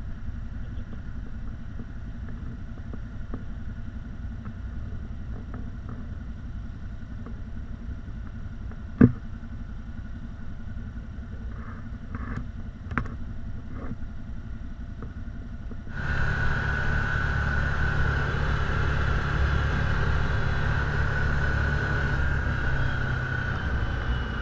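ATV and side-by-side engines: a steady low rumble as a convoy of machines comes along the trail, with a few small clicks and one sharp knock about nine seconds in. At about sixteen seconds the sound switches suddenly to a side-by-side under way, its engine running louder with a steady high whine.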